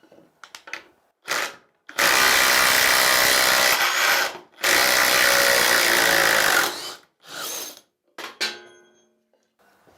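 Brushless 20 V cordless impact driver hammering a screw in a wooden beam, in two bursts of about two and a half seconds each, with a few short knocks before and after.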